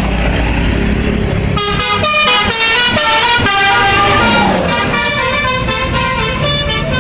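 A bus engine runs with a low rumble, then about one and a half seconds in a bus's multi-tone 'telolet' basuri horn starts playing a melody of stepped notes.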